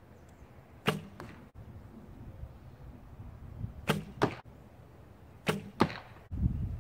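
Recurve bow shot three times in quick succession. Each shot is a sharp snap of the string on release, followed about a third of a second later by a second sharp hit as the arrow strikes the target. A low rumble comes near the end.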